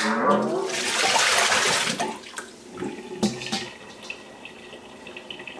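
Water splashing and sloshing in a metal bowl of beet-washing water for about two seconds, then a few light knocks of handling.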